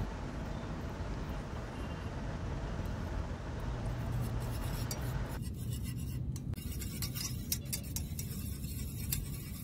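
Miniature spring whisk beating eggs in a small aluminium bowl, the wire coils clicking lightly against the bowl, most plainly in the second half, over a steady low rumble.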